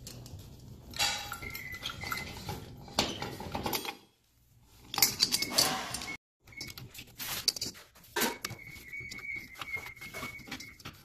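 Brass chandelier canopy, collar nut and chain clinking and rattling as the nut is unscrewed and the canopy is lowered from the ceiling. The clinks are scattered, with a thin ringing in places and two short silences.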